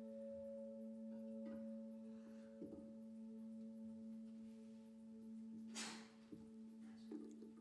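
Prayer bowl (singing bowl) ringing on, a long steady hum with several overtones slowly fading. A brief soft noise about six seconds in.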